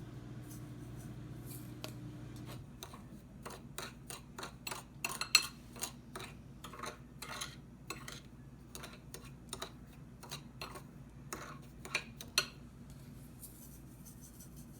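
A steady low hum that stops about two and a half seconds in, then a long run of irregular light clicks and taps as containers and utensils are handled on a kitchen counter.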